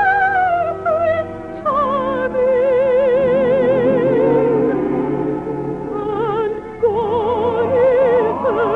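Operetta orchestra playing a slow, high melody in wide vibrato over sustained accompaniment, in a 1950s radio recording.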